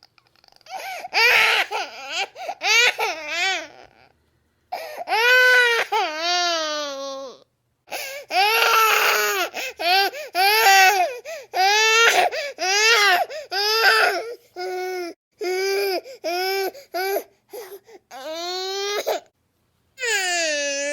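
A baby crying: runs of loud wails, each rising and falling in pitch and broken by quick breaths. There are brief pauses about four seconds in, about seven and a half seconds in and near the end, followed by one long held wail.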